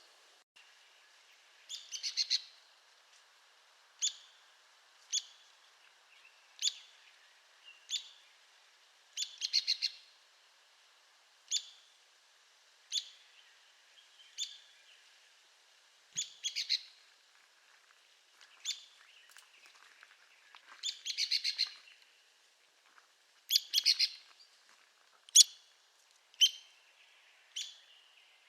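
Arizona woodpecker calling: sharp, high single call notes repeated every one to two seconds, some run together into short, quick chattering series.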